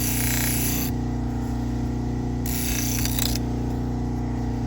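Motor-driven deburring wheel running with a steady hum while a knife edge is drawn across it. Each pass is a hiss about a second long: one at the start and one about two and a half seconds in, stripping the burr from the edge.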